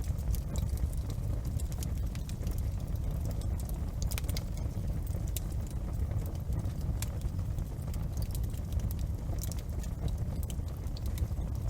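Fire crackling in a fireplace: scattered, irregular sharp snaps and pops over a steady low rumble.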